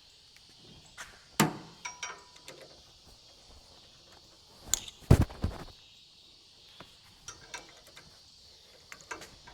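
Scattered knocks and clinks of tools and parts being handled on a small Honda GX200 pump engine during carburetor removal. The loudest knocks come about one and a half seconds in and around five seconds in, over a steady high drone of insects.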